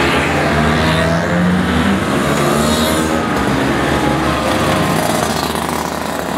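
Several vintage two-stroke Vespa scooters passing one after another, their small engines running with pitch rising and falling as they ride by.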